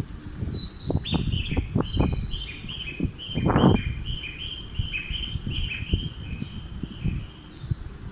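A small songbird singing a rapid run of high chirping notes, about three a second, that stop shortly before the end. Wind buffets the microphone underneath, with a stronger gust about halfway through.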